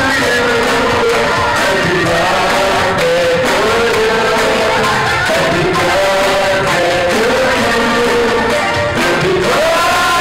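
Music with several voices singing and a steady beat.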